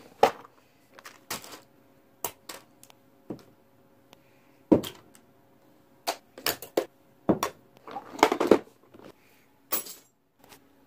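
Irregular clicks and knocks of small plastic toiletry items and cases being handled and set down, about a dozen separate taps with quiet gaps and a quick cluster of rattling near the end. A faint steady hum sits underneath for a few seconds in the middle.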